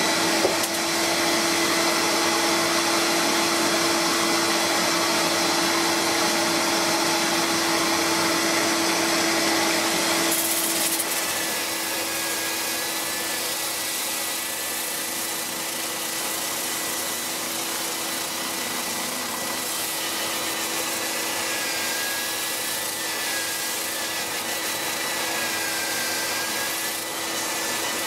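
Power sanding a honey locust bowl on a wood lathe: a cordless drill spins a soft-backed 80-grit sanding disc against the turning wood, a steady machine whir with a sanding hiss. About ten seconds in the sound drops a little and a faint wavering motor whine comes through.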